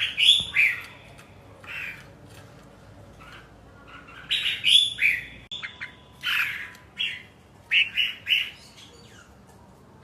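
Bird calls: short, harsh squawks and chirps in bursts, a few at the start and a busier run between about four and nine seconds in.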